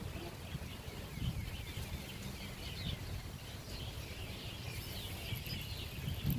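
Many small birds chirping in quick, high twitters, over a low rumble of wind on the microphone.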